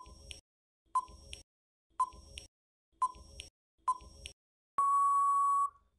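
Countdown timer sound effect: five short beeps, one a second, then one longer steady beep near the end as the time runs out.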